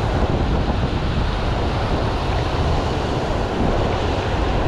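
Gulf surf washing onto the beach, with wind buffeting the microphone in a steady rush and low rumble.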